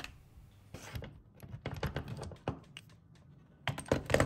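Irregular light clicks and taps of small metal tools and parts being handled, in uneven clusters, the loudest near the end.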